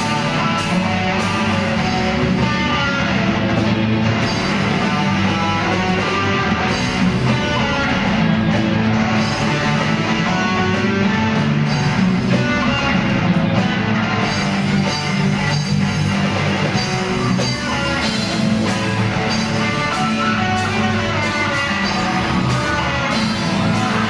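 Live rock band playing a song on stage: electric guitars, bass guitar and drum kit at a steady loud level throughout.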